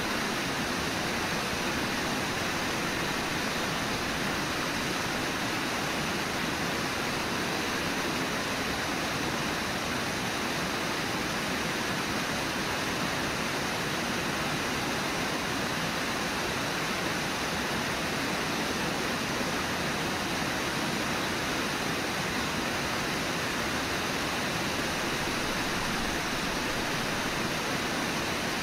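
River water rushing steadily, an even hiss with no distinct splashes or other events.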